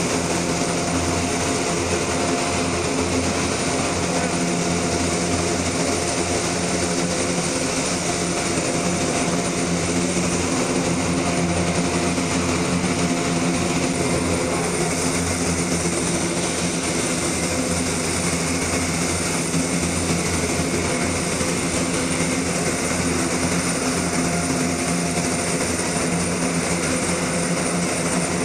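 Military cargo plane's engines running steadily on the ground: a loud, even drone with a low hum.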